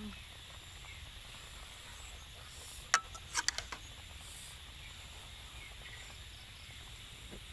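Steady rural background with a faint, even drone of insects such as crickets. About three seconds in comes a quick run of four or five sharp clicks.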